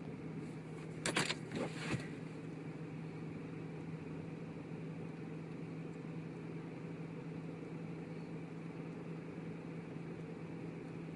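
Steady low hum and hiss inside a stopped car, with three short sharp clicks about a second in.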